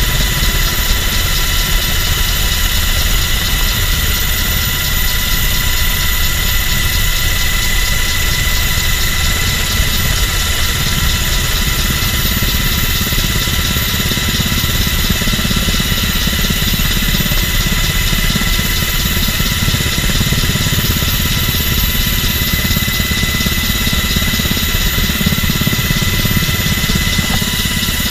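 MH-60 Jayhawk helicopter in flight, heard from inside its cabin: a loud, steady low rumble with several steady high whining tones from its twin turboshaft engines over it.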